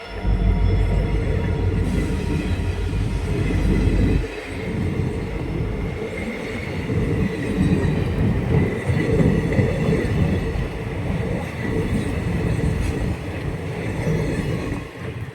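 Train running on the track: a steady, loud rumble of wheels on rails, with a faint high wheel squeal through the middle.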